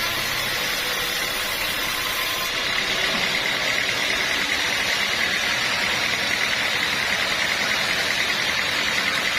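Sawmill machinery running with a steady mechanical noise and a persistent high tone, which turns into a fast, even pulsing about three seconds in.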